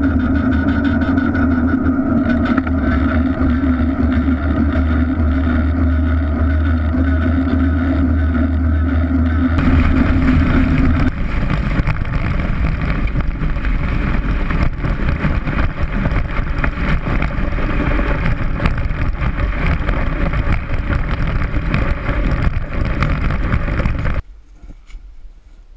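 A steady drone with a fixed low pitch for about the first ten seconds, then loud rushing wind noise on the action camera's microphone while sliding down snow on a sled. The noise cuts off abruptly near the end, leaving faint rustling.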